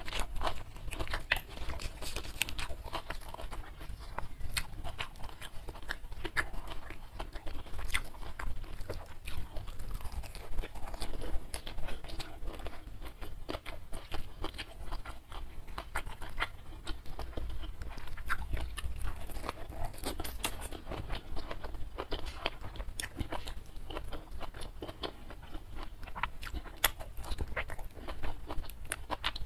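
Close-miked chewing and crunching of food by a person eating, with many short sharp clicks and crunches coming in a dense, irregular run.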